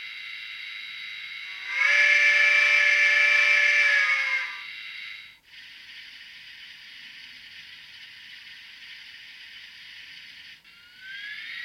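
DCC sound decoder in a Bachmann On30 Climax model steam locomotive playing a steady steam hiss through its small onboard speaker, with one long chime steam whistle blast about two seconds in that lasts about three seconds and is the loudest sound. The hiss cuts out briefly twice, and a rising whine begins near the end.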